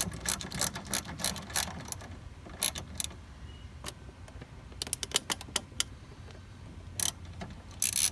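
Hand ratchet clicking quickly, about six clicks a second, as it backs out a 10 mm bolt. The clicking stops about two seconds in, followed by scattered single clicks and small knocks of metal handling.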